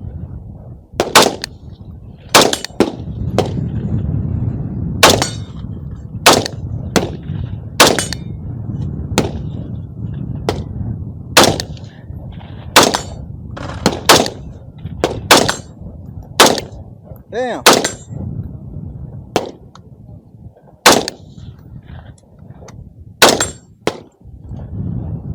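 Rifle gunfire from an AR-15: single shots fired one at a time at an irregular pace, roughly a second or so apart, about twenty in all, over a steady low rumble.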